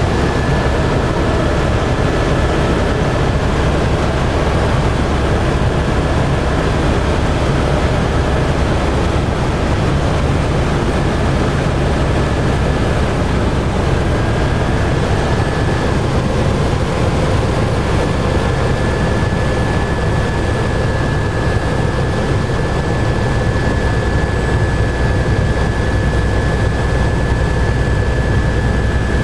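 Steady low rumble of a vehicle in motion, with a thin steady whine above it.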